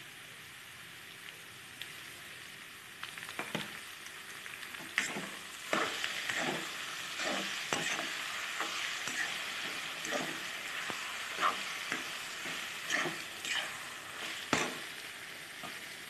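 Mustard and tomato paste frying with drumsticks and potatoes in a metal wok, a steady sizzle. From about three seconds in a metal spatula stirs and scrapes the pan with repeated short clicks.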